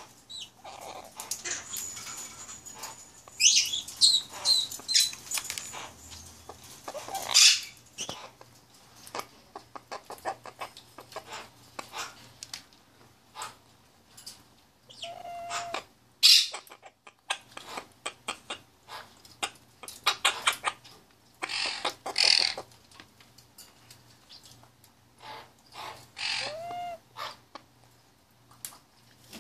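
A small white cockatoo biting and chewing raw pumpkin: many quick beak clicks and crunches, broken by a few short chirps, whistles and squawks from the bird.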